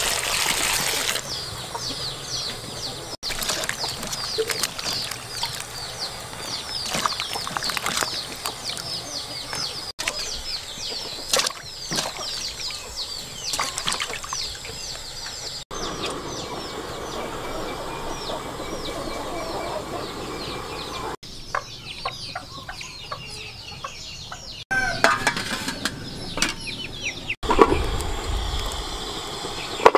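Water poured over vegetables in a metal pot, then vegetables handled with scattered clatters and knocks, and a heavier thump near the end as pumpkin pieces go into a metal steamer. Rapid high bird chirping runs behind much of it.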